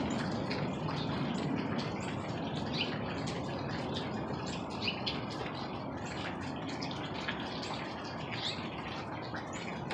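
Small birds chirping many times over a steady rushing noise.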